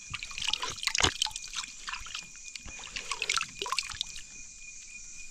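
Water dripping and sloshing in irregular small splashes and clicks, as water is taken to drink; a thin steady high tone runs beneath.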